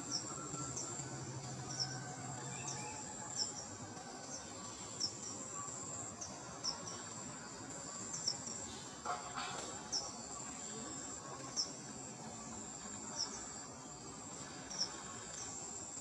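A steady, high-pitched drone of insects, with short high chirps repeating irregularly about once a second over it. A brief louder, lower sound stands out about nine seconds in.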